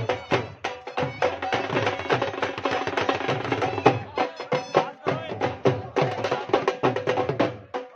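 Dhol drumming in a fast, steady beat with a sustained melody held over it, as music for dancing.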